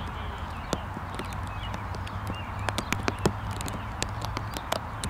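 Open-field ambience: birds chirping faintly among many irregular sharp clicks, over a low steady hum.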